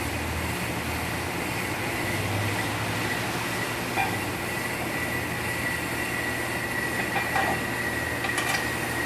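Steady mechanical shop noise with a constant high whine, broken by a few light metal clicks and clinks as a brake caliper bracket is fitted over a rear disc brake rotor: one about halfway through, several more near the end.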